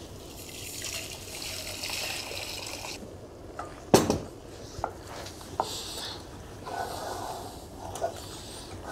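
Milk-and-egg custard mixture pouring from a bowl into a stainless steel saucepan as a steady trickle for about three seconds, then a sharp knock about four seconds in, followed by a few light taps and scrapes of a wooden spoon stirring the custard in the pot to thicken it.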